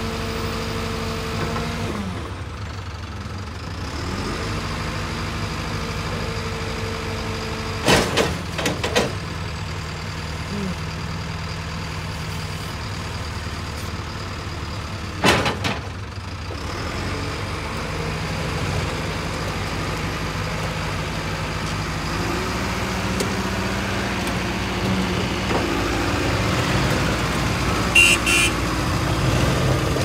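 Caterpillar 446B backhoe loader's diesel engine running, its pitch shifting as the machine is worked. It runs harder and louder over the last several seconds. Sharp knocks come at about eight and fifteen seconds in.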